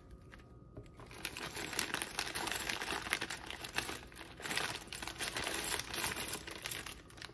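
Thin clear plastic bag crinkling and rustling as hands rummage in it, from about a second in until near the end.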